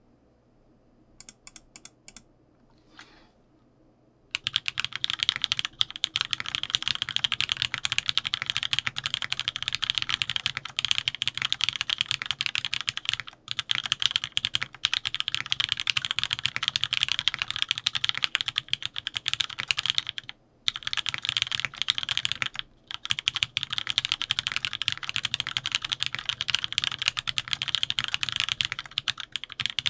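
Fast, continuous typing on a Serratus mechanical keyboard fitted with factory-lubed TTC Hey linear switches on a PC plate, with GMK keycaps. A few faint key clicks come first, then steady rapid typing starts about four seconds in, broken by brief pauses.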